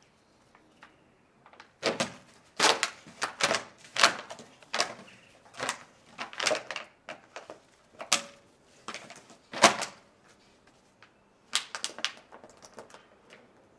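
Empty plastic bottle crackling and crunching in irregular clusters as an American bulldog puppy bites and pushes it around, starting about two seconds in, pausing near ten seconds and starting again.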